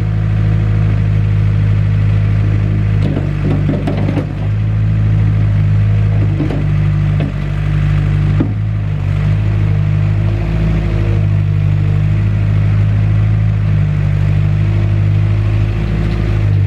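Mustang 940E skid steer's Yanmar diesel engine running steadily, with a few short clanks and clatters over it.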